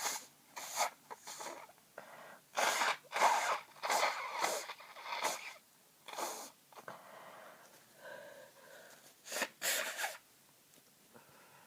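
A person with a heavy head cold sneezing and sniffing through a blocked nose: a run of short breathy bursts, loudest in clusters about three to five seconds in and again around nine to ten seconds in.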